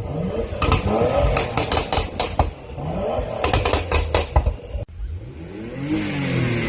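Porsche Macan S turbocharged V6 with a Stage 1 tune, blipped through its exhaust: short revs followed by rapid bursts of exhaust pops and crackles on the overrun, three clusters in all. Near the end the engine is held under load and its note climbs as it accelerates.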